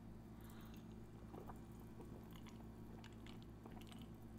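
Near silence: a steady low hum with faint, scattered small clicks.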